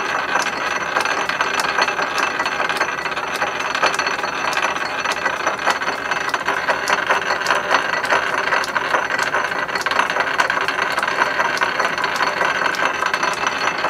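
Metal lathe running slowly in back gear with the half nut engaged on the lead screw: a steady gear whine with rapid, even ticking, as music wire winds onto a mandrel into a spring.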